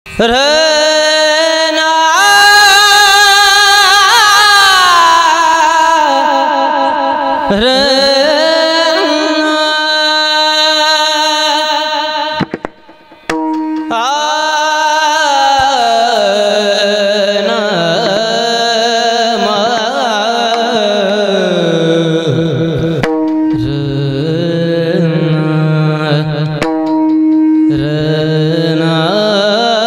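Devotional Marathi abhang singing with tabla: a voice holding long, ornamented notes that slide and waver. A short break comes about twelve and a half seconds in.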